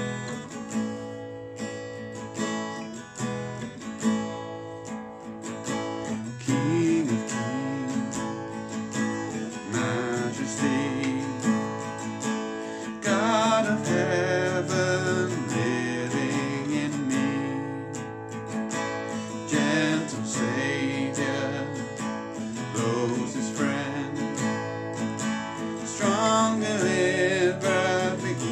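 Strummed acoustic guitar playing a worship song.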